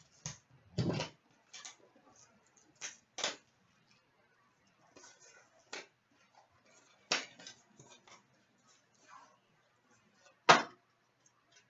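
A box of hockey trading cards being opened and handled: scattered short rustles, taps and clicks of cardboard and wrapper, with two sharper knocks, one about seven seconds in and one near the end.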